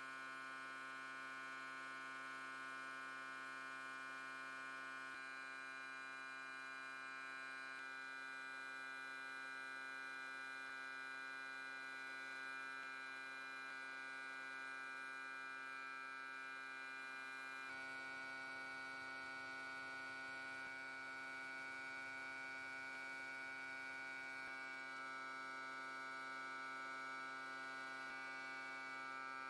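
Steady electrical hum from powder-coating booth equipment running while parts are sprayed, made of many steady tones stacked together. The mix of tones shifts slightly a few times, most noticeably about two-thirds of the way through.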